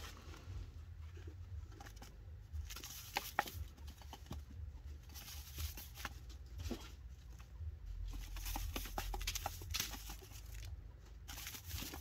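Chinchilla taking a dust bath in a metal tray, rolling and scrabbling in fine dust-bath powder: repeated bursts of hissy scuffing and patter, with a long run of it about two-thirds of the way through.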